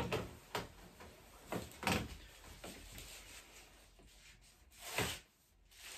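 A few short rustles and soft bumps of a person moving about in a dark room, with the clearest near two seconds in and near five seconds in.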